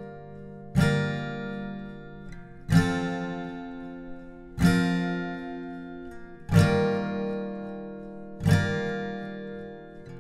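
Background music: an acoustic guitar strumming a slow chord about every two seconds, five strums here, each left to ring out.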